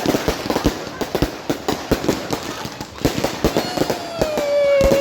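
Fireworks going off in rapid, irregular pops and bangs. Over the last second and a half a long tone slowly falls in pitch and becomes the loudest sound, ending abruptly.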